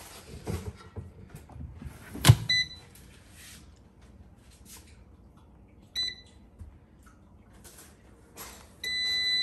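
Instant Vortex Plus air fryer oven: its door is shut with a sharp knock about two seconds in, followed by a short beep. Another short beep comes as the touch panel is pressed around six seconds. Near the end a long steady beep starts as Start is pressed.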